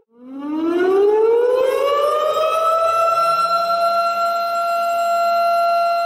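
Tornado warning siren starting up after a brief gap, its wail climbing in pitch for about three seconds and then holding steady.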